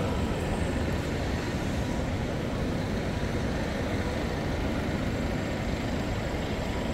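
Steady city street background noise: an even, low rumble of distant traffic and general urban hum, with no distinct events.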